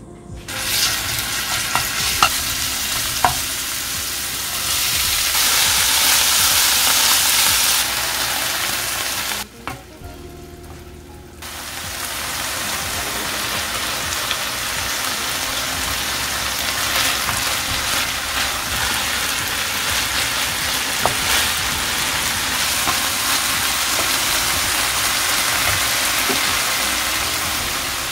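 Steady sizzle of minced garlic and bracken fern (gosari) frying in oil in a pan, with a wooden spatula scraping and tapping as it stirs. The sizzle drops away for about two seconds around ten seconds in, then resumes.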